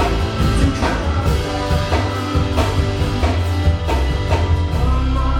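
Live rock band playing a song: drum kit hits on a steady beat over bass and electric guitar.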